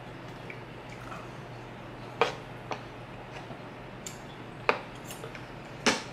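Metal spoon and fork clinking against each other and the wooden cutting board while gathering rice, with four sharp clinks spread over the last four seconds.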